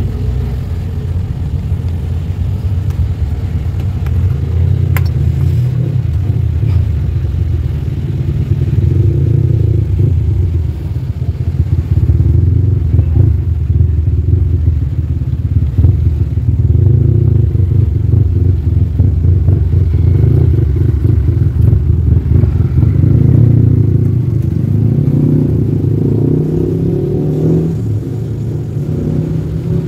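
A large truck diesel engine running with a low rumble, its level rising and falling.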